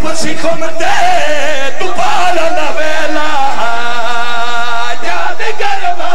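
Men's voices chanting and singing loudly into microphones over a public-address system, with a long held note that wavers, about three and a half to five seconds in.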